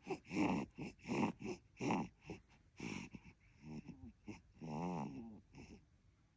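Baby drinking milk: a rhythm of noisy sucking, gulping and breathing sounds about twice a second, then a few short pitched grunts and squeaks in the second half.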